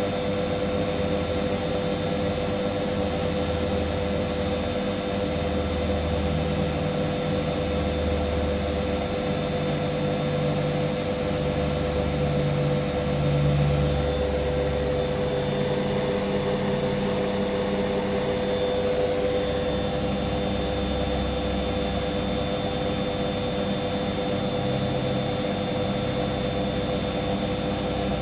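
Hoover washing machine on its final spin, the drum turning at high speed with a steady motor whine and a low rumble that wavers in pitch every second or two.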